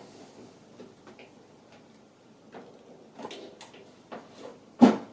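Handling of a PC tower case: scattered clicks and light knocks, with one louder knock near the end.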